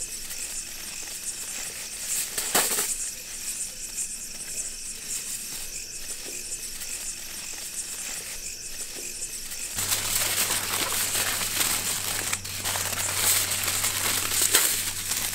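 Aluminium foil being crinkled and folded by hand around burgers, quieter at first and much louder in the last five seconds, over a steady background of crickets chirping.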